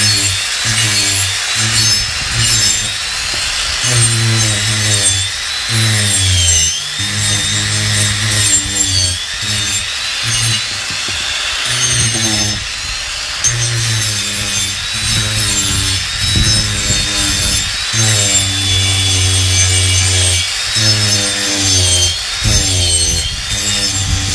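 Parkside cordless angle grinder with a 125 mm rasping disc, grinding into soft pine. A rough, buzzing rasp comes and goes as the disc bites and lifts off. Each time it bears down, the motor's high whine dips in pitch, and it makes easy work of the wood.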